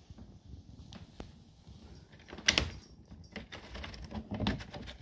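A pet carrier's plastic door latch and wire door clicking and rattling as the door is worked open. There is one sharp clack about halfway through, then a run of smaller clicks and rattles.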